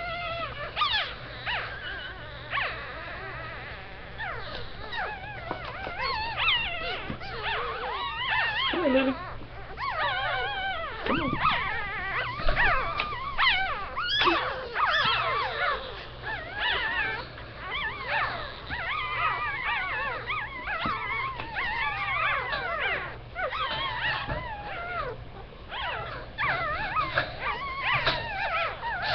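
Two-day-old Shih Tzu puppies squealing and whimpering: thin, high, wavering cries, several at once, coming almost without a break.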